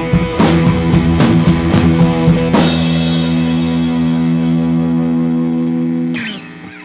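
Rock background music with guitar and drums. The drumming stops about two and a half seconds in and a single chord rings on, dropping away near the end.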